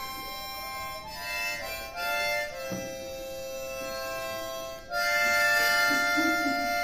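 Harmonica playing held chords, the chord changing every second or so, then a louder, longer chord from about five seconds in.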